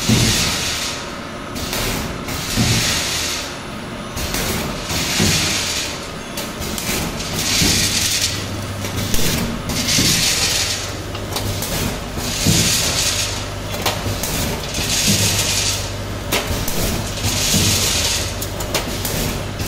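Vertical form-fill-seal pouch packing machine running through its cycle. A hiss about every two and a half seconds, with knocks from the mechanism and a steady low motor hum underneath.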